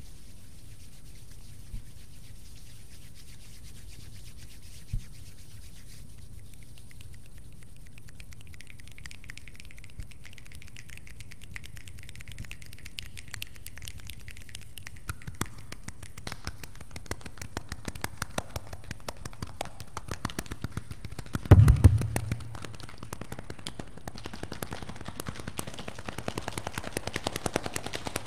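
A group of people making a rainstorm with their hands: palms rubbing together, then scattered finger snaps like the first raindrops, thickening into dense snaps and light claps. A heavy thump comes a little past the middle.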